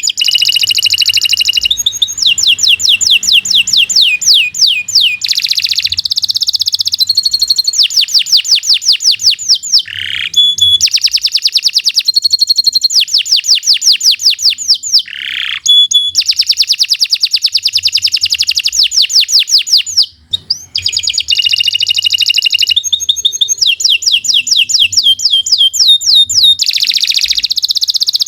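Domestic canary singing a long, loud song made of rapid trills, each a fast run of the same note repeated many times before switching to a new one. There is a brief pause about twenty seconds in.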